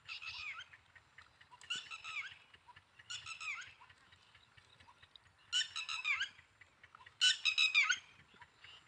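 A young dog's high-pitched squealing yelps while it play-wrestles with another dog. They come in five short bouts, the last two the loudest.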